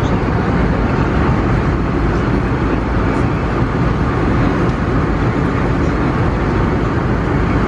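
Airbus A320neo cabin noise in cruise: a steady, even rush of engine and airflow noise.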